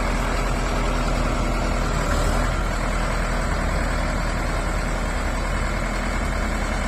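Heavy machine's diesel engine running steadily at idle, with an even low pulsing and no change in speed.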